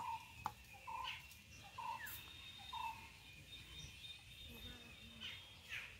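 Faint bird calls: one bird repeats a short, level note about once a second, four times, then stops about halfway through, with fainter higher chirps from other birds.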